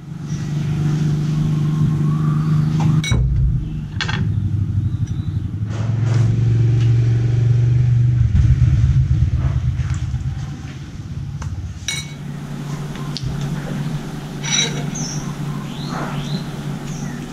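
An engine running steadily in a low hum, dipping lower in pitch for a few seconds midway and then coming back up. A metal spoon clinks against a ceramic bowl a few times as gac fruit arils are scooped out, and birds chirp near the end.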